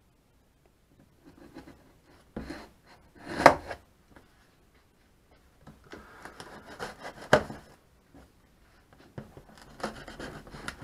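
A dull folding knife scraping and tearing through packing tape on a cardboard box in several short bouts, with one sharp knock about three and a half seconds in.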